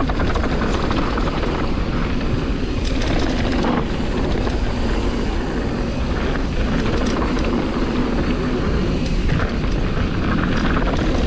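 Mountain bike descending a rough downhill trail: a constant rumble of tyres over rock and dirt with the bike rattling and clattering, and wind rushing over the action camera's microphone.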